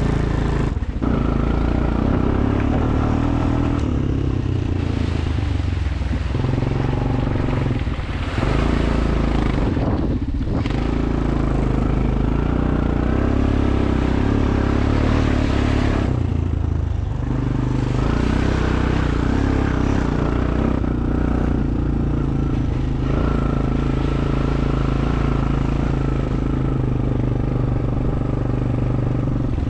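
ATV engine running continuously under load on a trail ride, its note rising and falling with the throttle. There are several brief drops in the engine sound along the way.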